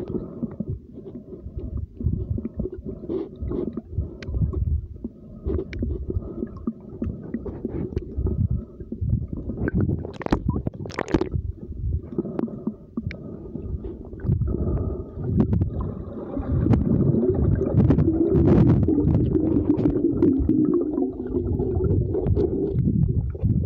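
Muffled rumbling and gurgling of water moving over a smartphone's microphone held underwater, with scattered clicks and knocks; it grows louder about two-thirds of the way through.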